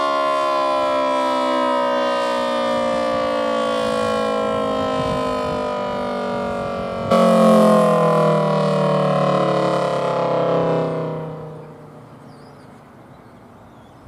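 Mid-to-late-1950s Federal Thunderbolt 1000T siren (three-phase 1000AT, 4/5-port chopper) winding down, its wail falling steadily in pitch as the chopper slows. About seven seconds in the sound suddenly steps louder, then it fades away by about twelve seconds, leaving only faint background.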